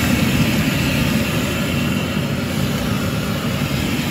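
Potato fries deep-frying in a pot of hot oil, bubbling and sizzling hard as a steady, dense rumbling hiss.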